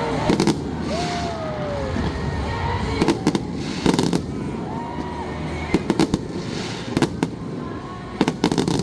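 Aerial fireworks bursting in a series of sharp bangs, some as quick double or triple cracks, about every second or so, over a steady background hum of a crowd.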